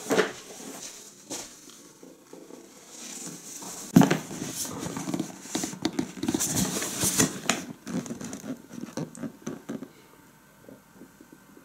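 A cardboard retail box being handled: a thump about four seconds in, then rustling, crackling and light tapping of the cardboard, growing fainter near the end.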